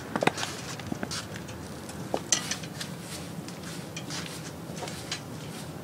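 Footsteps in 7-inch platform high heels: a run of irregular sharp clicks and taps, the firmest about a quarter second in, over a steady low hum.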